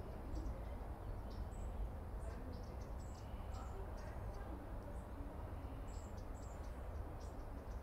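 Small birds chirping in short, high, irregular notes over a steady low rumble.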